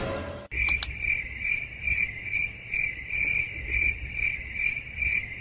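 Cricket chirping sound effect: a steady high trill pulsing about twice a second, starting about half a second in. It is the stock comedy cue for an awkward silence.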